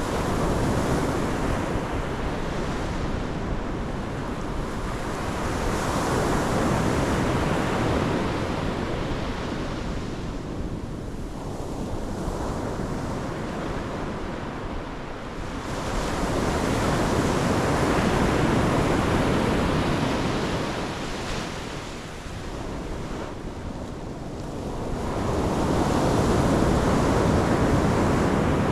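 Pacific Ocean surf breaking on the shore, a steady wash that swells and ebbs as waves come in, about four surges.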